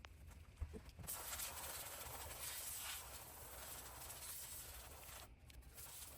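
A can of compressed air spraying into a typewriter's mechanism: one steady hiss starting about a second in, lasting about four seconds and stopping abruptly, blowing dust out of the works.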